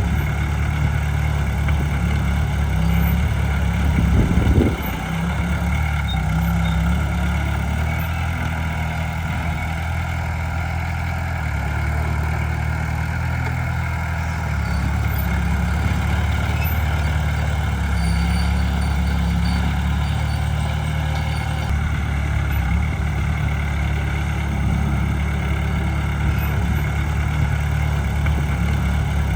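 Heavy diesel engine of earthmoving machinery running steadily, briefly louder about four seconds in.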